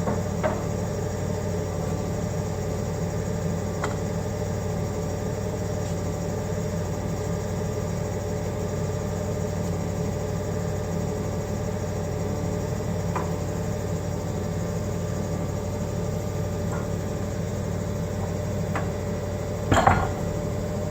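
Forklift running steadily with a constant hum, with a few light clicks as the fork is lowered. Near the end comes a single clunk as the heavy fork rolls forward off its block.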